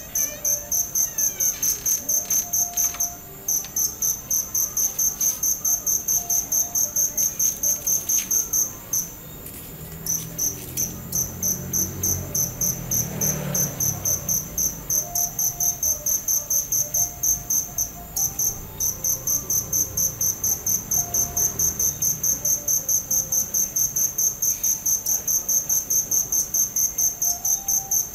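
Cricket chirping steadily, a high, even pulse of about four to five chirps a second, with a few brief pauses. A low rumble swells and fades underneath in the middle.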